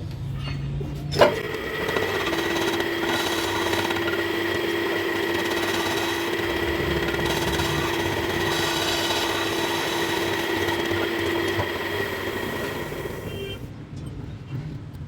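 Metal lathe boring out the cast-iron flywheel's bore: a sharp clank about a second in, then a steady cutting sound with a fixed ringing tone that fades away near the end.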